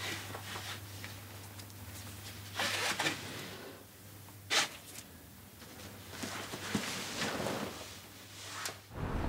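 Nylon backpack webbing rasping as it is pulled through plastic buckles, with fabric rustling. There is a sharp plastic click about four and a half seconds in and another near the end.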